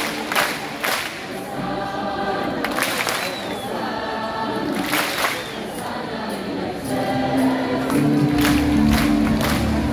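Large crowd singing together with music from the stage, with scattered hand claps. The music grows louder and fuller about eight seconds in.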